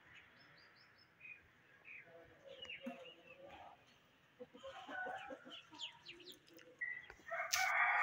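Bird calls: scattered short chirps and squawks, then a louder, longer call near the end.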